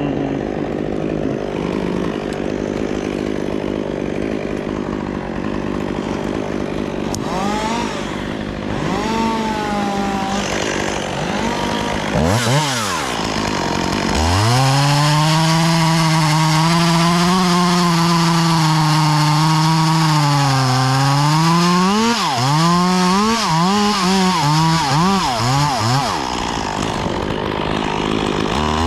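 Chainsaw running at low speed at first, then revved a few times before it settles into a long full-throttle cut about halfway through, its pitch sagging once under load. Near the end it revs up and drops back several times in quick succession as it works in and out of the wood.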